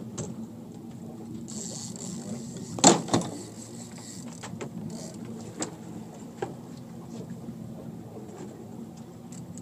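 A boat's engine running with a steady low hum, while the phone is handled: two loud knocks about three seconds in, and a few lighter clicks after.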